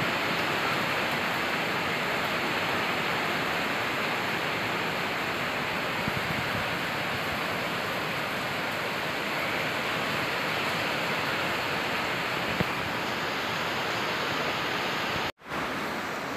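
Steady hiss of heavy rain, cutting out briefly near the end.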